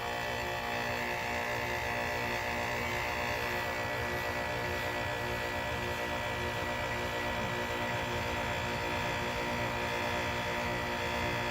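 Heat pump outdoor unit in defrost: the compressor runs steadily in cooling mode with the outdoor fan off, a constant hum made up of several fixed tones.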